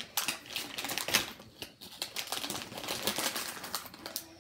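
Makeup items being handled and rummaged in a zippered fabric cosmetics pouch: a quick, uneven run of clicks and rustles.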